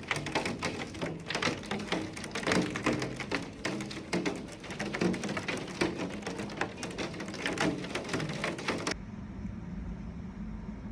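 Hailstones and heavy rain pelting hard surfaces: a dense, irregular clatter of sharp hits. About nine seconds in it cuts off abruptly to a quieter, steady low rumble.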